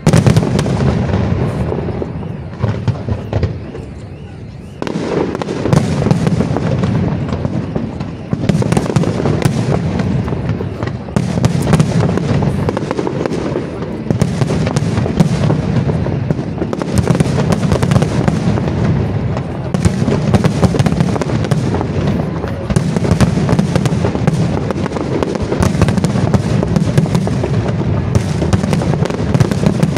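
Aerial fireworks display: shells bursting in rapid, overlapping volleys, a dense stream of loud bangs. It thins out from about two seconds in and picks up again at about five seconds, staying dense from there on.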